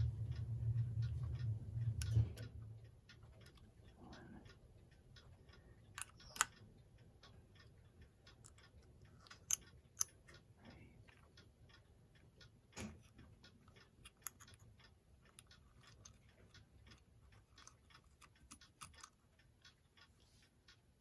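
Small sharp metal clicks, a few louder than the rest, as brass clock gears and parts are handled and set into the movement, over faint, fairly even ticking. A low hum runs for the first two seconds, then stops.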